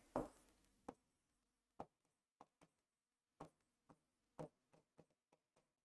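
Near silence broken by faint, irregular ticks from a marker pen touching a whiteboard during writing.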